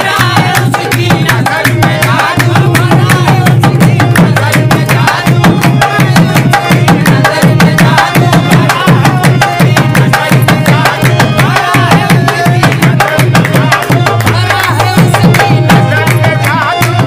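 Qawwali-style Sufi devotional music: tabla drumming in a fast, steady beat under a sustained low accompaniment, with voices singing the melody.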